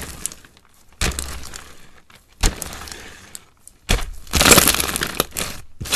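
Mixed slime being squeezed and pressed by hand, crackling and popping. Sharp crackles come about a second in and near two and a half seconds, and a loud dense crackling runs from about four and a half to five and a half seconds.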